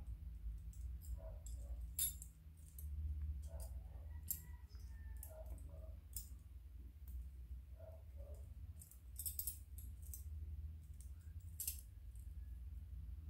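Metal wire puzzle and its small chain clinking and jingling as they are handled: irregular light metallic clicks and rattles over a low steady hum.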